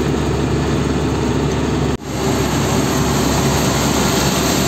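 Truck engine running steadily, heard from inside the cab while driving slowly, with a low hum and road noise; the sound cuts out for an instant about two seconds in.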